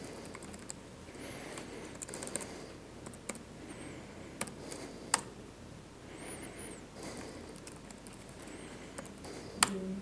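Scattered clicks and taps of a computer keyboard and mouse in use, a handful of sharp ones spread irregularly, the loudest near the end, over faint room noise.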